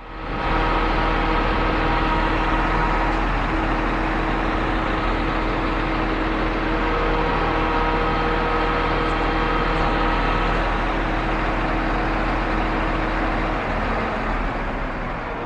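Heavy diesel truck engine running steadily, with a steady whine over it that stops near the end.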